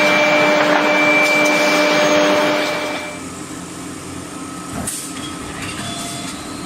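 Forging-line machinery running: a loud steady hiss with a few humming tones that drops off about three seconds in, leaving a quieter machine hum with a couple of faint clicks.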